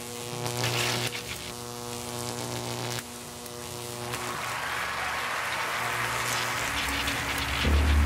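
Steady electrical buzzing hum, with a stack of evenly spaced overtones, from a Van de Graaff–style high-voltage generator running; it stops about three to four seconds in. A rising wash of noise follows, and a deep low rumble starts near the end.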